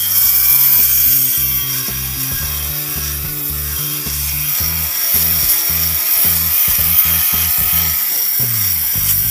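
Rikon RKN-12 battery fabric shaver running steadily, its small motor turning the stainless steel blades as it is pushed over a knitted sweater, cutting off the pills. Background music plays underneath.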